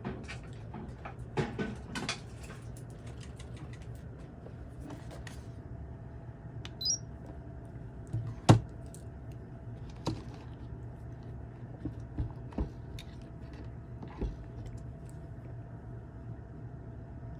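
Scattered light clicks and knocks from handling a capacitor tester and its probes on a capacitor, the sharpest about eight and a half seconds in, over a steady low hum.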